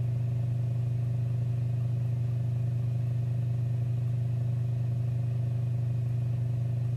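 Steady low hum with several fainter overtones, unchanging throughout.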